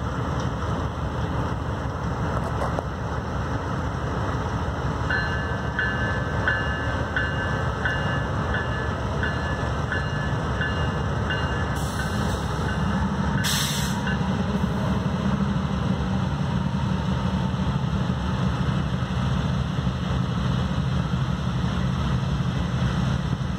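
Two BNSF GE B40-8 diesel locomotives pull a freight train past with a steady low rumble, and their engine drone grows stronger from about halfway through. A bell rings evenly for several seconds early in the passage, and a short hiss sounds about halfway through.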